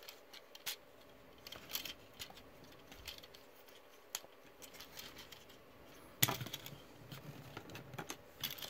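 Faint clicks and ticks of a plastic Transformers Siege Leader Class Astrotrain figure being handled and its joints adjusted, with a louder knock and rustle about six seconds in.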